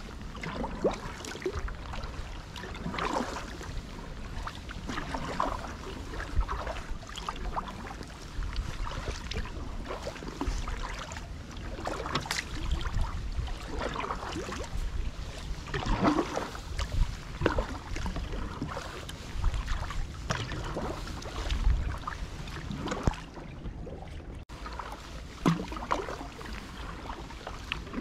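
Kayak paddling on calm water: double-bladed paddle strokes dipping in and pulling through with a splash and drip about every one to two seconds, over a steady low rumble.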